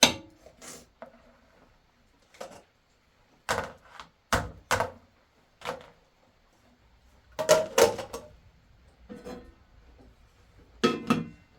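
A run of sharp knocks and clinks, about a dozen irregular hits, with a couple of them ringing briefly near the end: hard objects being handled and set down.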